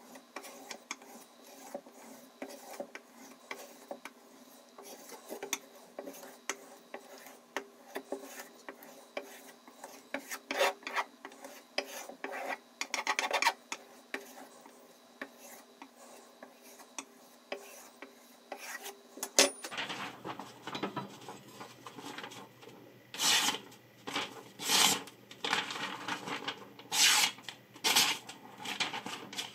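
Steak knife blade drawn in quick repeated strokes across a strop loaded with green compound, a dense run of rubbing swipes. About two-thirds in, the sound changes to louder, separate swishes about a second apart as the freshly sharpened edge slices through paper.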